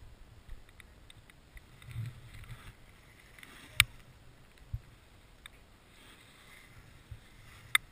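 Low rumble of wind on the camera microphone, with a few sharp clicks, the loudest about four seconds in and another near the end.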